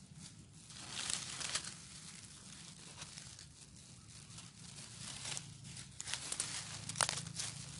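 A plastic mesh net rustling and crinkling as it is handled right against the microphone, in uneven bursts. The bursts are loudest about a second in and again from about five to seven and a half seconds in.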